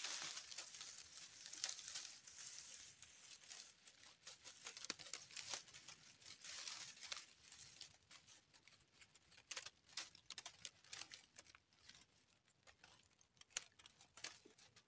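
Dry grass stalks rustling and crackling as they are pushed and parted by hand, a faint run of many small irregular crackles.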